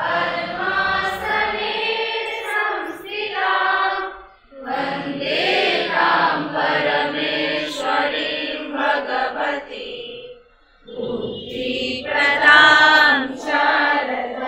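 A group of voices singing a prayer together, in three long sung phrases with short breaks about four and a half and ten and a half seconds in.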